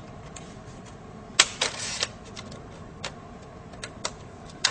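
Plastic retaining tabs of a laptop LCD bezel snapping and clicking as a flathead screwdriver pries the bezel away from the screen. A loud snap comes about a second and a half in, followed by a short crackle, then a few lighter clicks.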